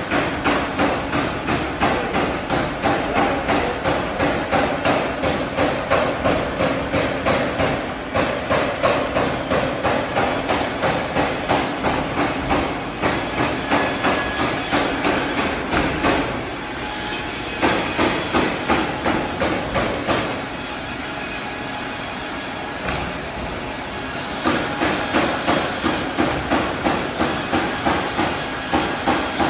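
Sawmill machinery in use since 1931, running with a regular beat of about two strokes a second. About halfway through the beat drops out to a steadier running sound for several seconds, then picks up again.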